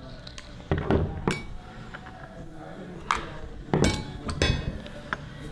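Hand tools and metal parts knocking and clinking on a workbench: a handful of sharp metallic knocks, a few of them ringing briefly.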